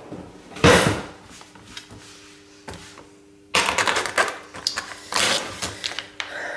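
Kitchen handling noises: one loud thud about a second in, then, from about halfway, a quick, dense clatter of clicks and rustling as things are set out on the counter. A faint steady hum runs underneath.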